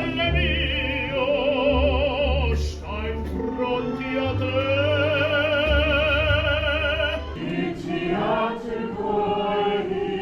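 Operatic singing with wide vibrato over a low, sustained accompaniment; the music changes to a new passage about seven seconds in.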